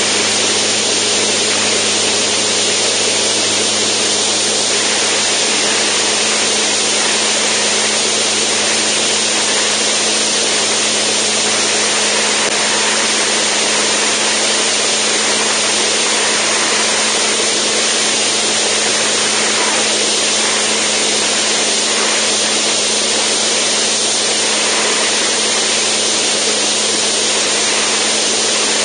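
Zenith STOL CH750 light aircraft in level flight: its piston engine and propeller drone steadily, over a constant rush of air across the microphone.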